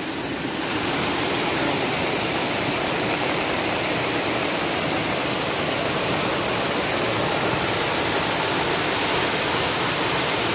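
Monsoon-swollen mountain stream in flash flood, its torrent rushing with a steady, loud roar that grows a little louder under a second in.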